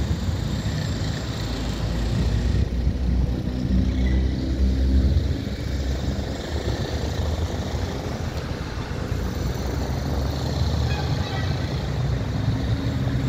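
Street traffic noise: the low rumble of motor vehicles, with one vehicle's engine passing close and growing louder for a couple of seconds a few seconds in.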